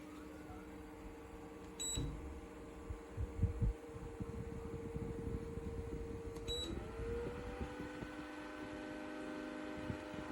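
Portable pedestal fan's motor humming steadily, with two short electronic beeps about two seconds and six and a half seconds in. Right after the second beep the motor's pitch glides up as it changes speed. A few soft knocks come around three seconds in.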